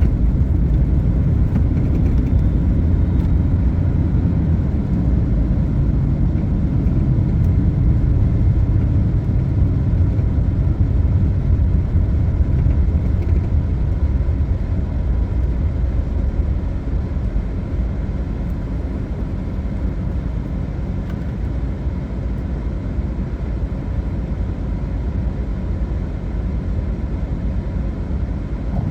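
Steady low road and engine rumble of a vehicle driving, heard from inside the cab, easing off slightly in the second half.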